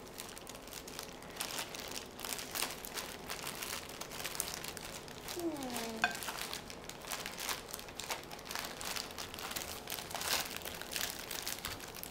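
Thin plastic bag crinkling and rustling irregularly as a child's face and hand push into it. A brief falling voice sound comes about five and a half seconds in.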